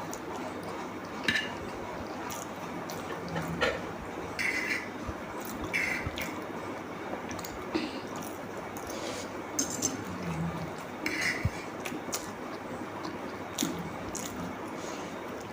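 Close-miked eating sounds: wet chewing and mouth noises, with scattered clicks of cutlery against a dish.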